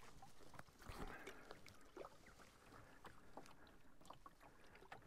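Faint, irregular small splashes and drips of a single-blade canoe paddle stroking through the water and lifting out.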